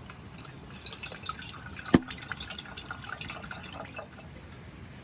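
Liquid bubbling and dripping, a patter of small irregular pops, with one sharp click about two seconds in.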